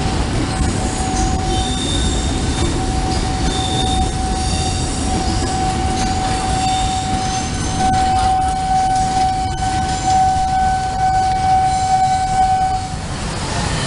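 Passenger train coaches rolling past at close range: a loud low rumble of wheels on the rails, with a steady high-pitched tone running along with it that stops about a second before the end as the last coach moves away.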